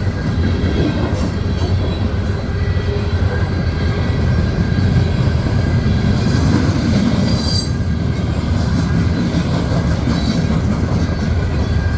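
Loaded coal hopper cars rolling past steadily, with a loud, even rumble of wheels on the rail. Faint thin wheel squeal runs through it, most noticeable briefly a little past the middle.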